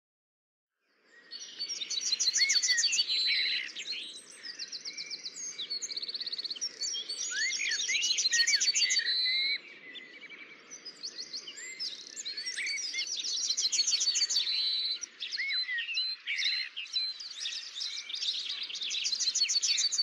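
A chorus of several songbirds singing and chirping together, overlapping rapid trills and short whistled notes, starting about a second in.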